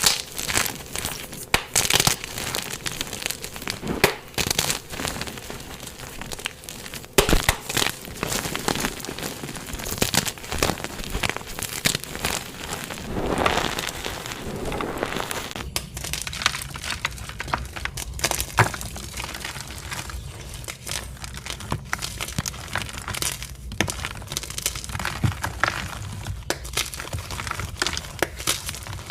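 Dyed gym chalk blocks being crushed: a dense run of crunching, crumbling crackles and sharp snaps, with the texture changing about halfway through as another block is taken up.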